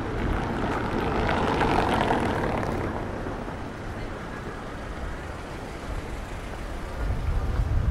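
Street traffic: a passing vehicle swells and fades in the first few seconds over a steady low traffic rumble, which grows louder near the end.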